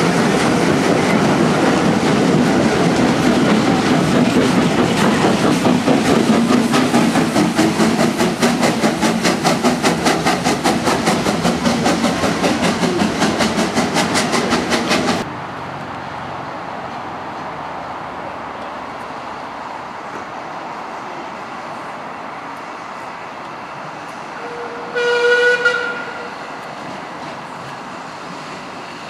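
Vintage wooden railway carriages of a steam-hauled train running past close by, their wheels making a rapid, regular clickety-clack over the rail joints, until the last coach clears and the sound drops off suddenly about halfway through. About ten seconds later a train whistle sounds once, a single pitched note lasting about a second, over a quieter background.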